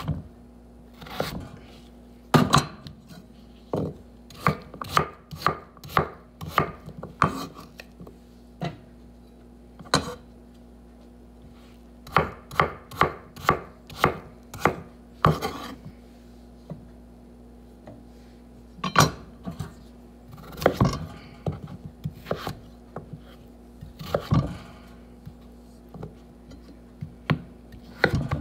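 Chef's knife chopping raw potato on a wooden cutting board: runs of sharp knocks, at times about two a second, broken by short pauses.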